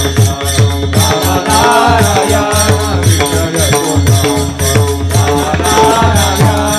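Kirtan devotional music: a sung refrain over a sustained keyboard-like drone, with a drum and jingling hand cymbals keeping a steady, quick beat.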